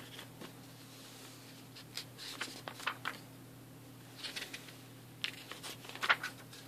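Glossy paper pages of a booklet being turned and handled, rustling in three short bursts, the last and loudest near the end, over a steady low hum.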